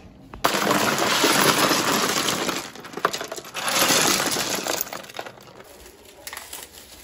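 Ice cubes poured over live crabs in a plastic basin, clattering and clinking loudly in two pours: the first starts about half a second in, and the second dies away after about five seconds.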